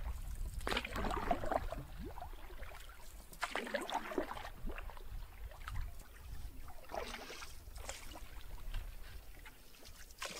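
Canoe paddle strokes: the blade swishing and splashing through the water with dripping in between, a stroke about every three seconds.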